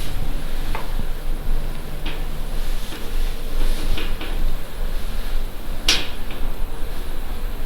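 Old 1970s lift in operation: a steady low hum with a few short clicks and clunks, the loudest clunk about six seconds in.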